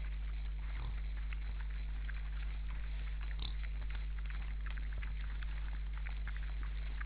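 Wild boars feeding: many small crunching and chewing clicks over a steady low electrical hum.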